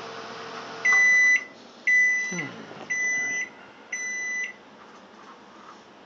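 Microwave oven running with a steady hum that stops about a second in as the cook cycle ends. It then beeps four times, about a second apart, each beep half a second long, the first two the loudest, signalling that the food is done.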